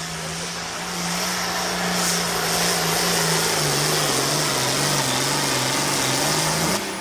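Pro Field pulling tractor's engine running hard under load while pulling the sled, with a steady loud drone and a strong hiss. Its pitch sags in the second half, climbs again, then cuts off suddenly near the end.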